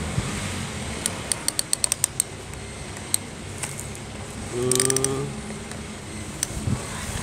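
Plastic toy excavator's arm joints clicking as they are ratcheted by hand: a quick run of about eight clicks between one and two seconds in, then a few single clicks later. A short voiced sound comes about halfway through.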